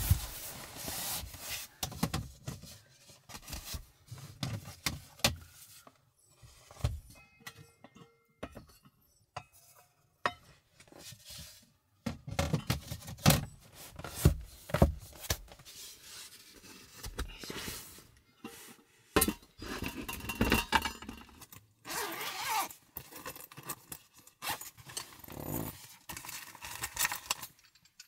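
Dishes, cookware and utensils being handled during meal preparation: irregular clinks, knocks and scrapes with short pauses between them.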